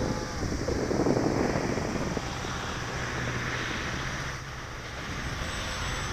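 Twin electric motors and propellers of a Durafly Cessna 310 RC model plane flying past, a faint steady propeller whine. Gusts of wind buffet the microphone in the first second or so.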